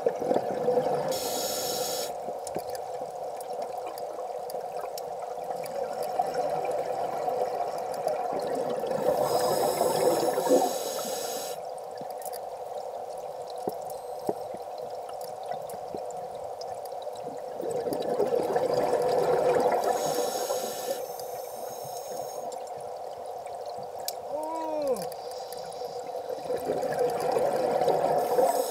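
A scuba diver breathing through a regulator, heard underwater: exhaled bubbles rush out in swells about every eight seconds over a steady drone.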